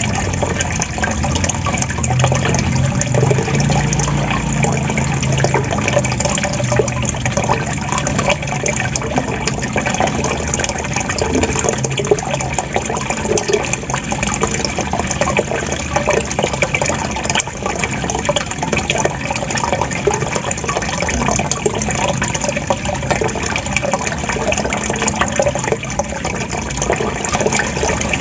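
Flowing water gurgling and trickling steadily, a continuous splashing texture with a low rumble beneath it.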